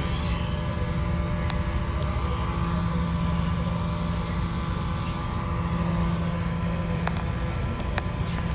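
Steady machine drone: a low rumble with a constant hum, and a few faint clicks scattered through it.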